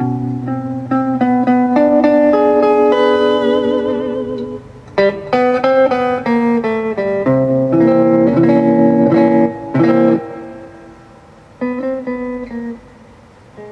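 Guitar music: a run of plucked single notes and chords, some of them held and wavering, with two quieter gaps in the second half.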